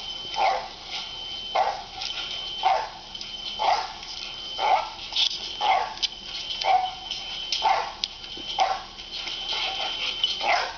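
A dog barking over and over in an even rhythm, about two barks a second, played back through a laptop's speakers.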